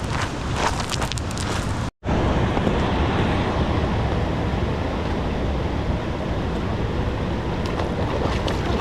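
Steady outdoor wind rushing and buffeting the microphone, with a few light clicks in the first two seconds. A brief dropout about two seconds in is followed by more even wind noise.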